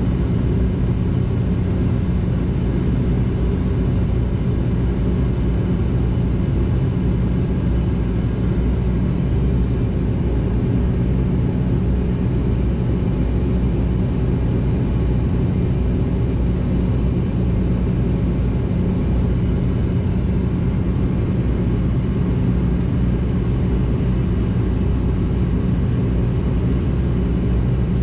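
Steady propeller drone inside the cabin of a De Havilland Canada Dash 8-400, from its two Pratt & Whitney Canada PW150A turboprops. It is a constant low hum of several held tones over a rumble, with no change in power.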